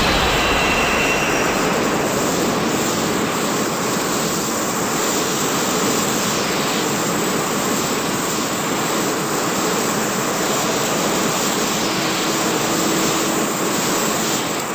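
A remade Shin Godzilla sound effect: a loud, steady rushing noise like a jet engine, with a faint high whine in the first couple of seconds.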